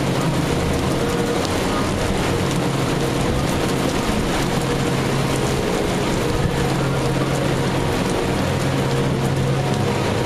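Heavy rain falling steadily on a wet rooftop deck, with a steady low machine hum underneath.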